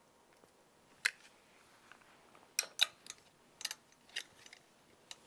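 A handful of light, sharp clicks and taps at irregular intervals, the kind made by hangers and clothes being handled on a rack.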